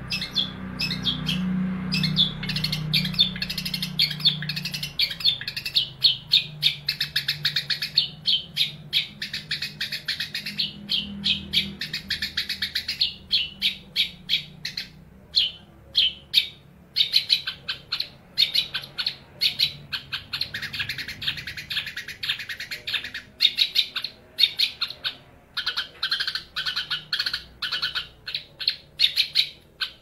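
Young male long-tailed shrike (cendet) singing loudly and continuously: a rapid stream of short, high chattering notes in a varied song full of learned, mimicked phrases, broken by a few brief pauses.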